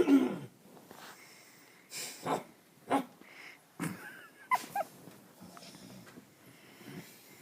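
Irregular snoring with loud snorts, the loudest at the very start, then a run of shorter snores, with two brief squeaky whines a little past halfway.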